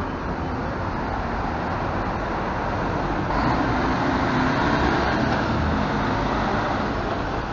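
Diesel engine of a double-decker intercity coach running as the coach drives slowly past at close range. The sound gets a little louder about halfway through as the rear engine bay comes by.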